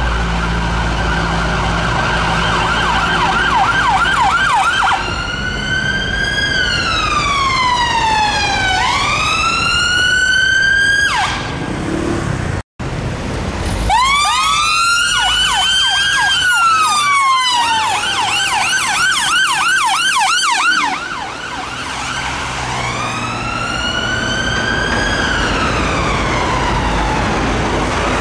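UK ambulance sirens from a London Ambulance Service Mercedes Sprinter ambulance and Skoda Octavia rapid response car, switching between a fast yelp and a slower rising-and-falling wail over the rumble of traffic. The sound breaks off for a moment about halfway through.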